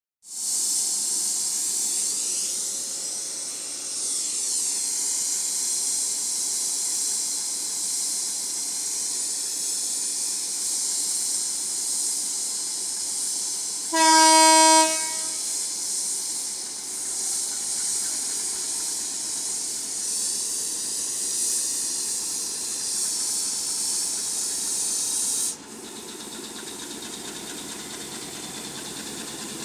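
Sri Lanka Railways M10A diesel locomotive and its train, with a loud steady hiss. The locomotive horn sounds once for about a second midway. The hiss cuts off suddenly near the end, leaving quieter background noise.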